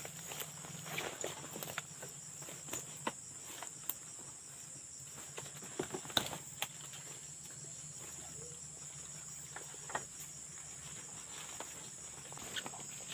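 Steady high-pitched insect chorus, with scattered light clicks and rustles.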